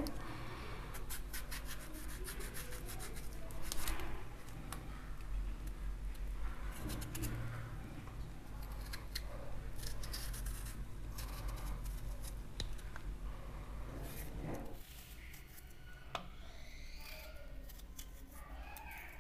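Kitchen knife shaving the skin off a raw chayote, a run of short, irregular scraping cuts. About fifteen seconds in it turns quieter as the knife cuts peeled pieces.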